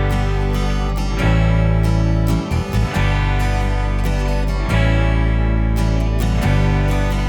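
Background music with a strummed guitar over sustained low notes.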